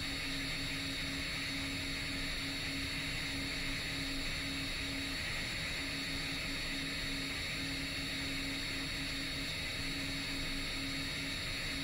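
Steady drone of a 10-inch FPV quadcopter's motors and propellers in flight, under an even hiss, with a low hum that drops out briefly now and then.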